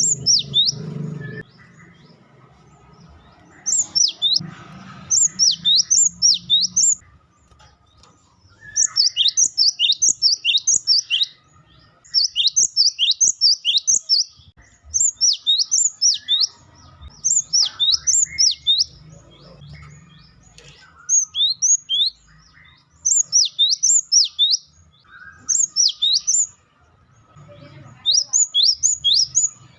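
Gelatik batu (cinereous tit) giving loud wucitan calls: quick series of sharp, high, downward-sweeping notes in bursts of several, repeated every second or two.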